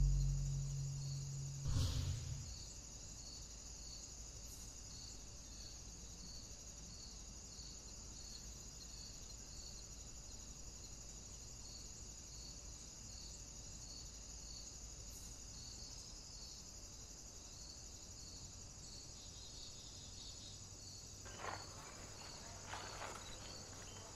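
Faint outdoor ambience of insects chirping steadily: a regular high chirp a little more than once a second over a constant high hiss. A loud sound dies away at the start, there is a single knock about two seconds in, and a few knocks sound near the end.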